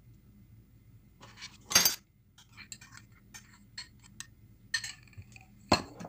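Metal spoon and a small cup clinking and scraping against a ceramic mixing bowl as butter is spooned in: a few sharp clinks, the loudest about two seconds in and another near the end, with lighter taps between.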